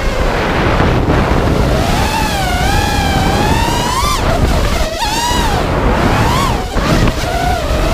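FPV racing quadcopter's brushless motors whining, the pitch sliding up and down with the throttle, over heavy wind rush on the onboard camera's microphone. The whine breaks off briefly about five seconds in and dips again near seven seconds.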